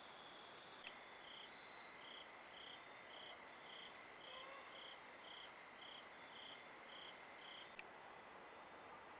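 Faint night insects calling: a steady high trill with a short higher chirp repeating a little under twice a second. A soft click about a second in and another near the end, where the chirping changes.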